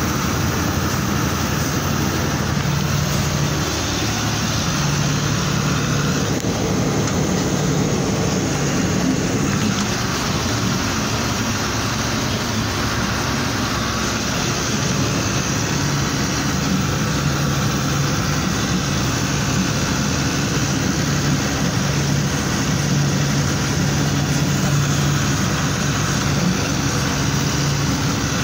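Truck engine running with road noise, heard from inside the cab while driving: a steady rumble with a low engine hum that fades in and out.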